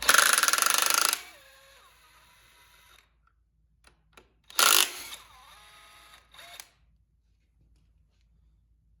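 Impact wrench hammering on the main bearing cap nuts of a 1931 Rumely 6A engine: a loud burst of about a second, then a second shorter burst a few seconds later. Each burst is followed by the tool's whine dropping in pitch as it spins down.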